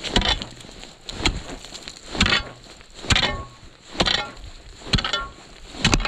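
Ice chisel striking lake ice, seven hard blows about a second apart, some with a brief ring. It is chopping a test hole to check the ice thickness, which turns out to be about 5–6 inches here.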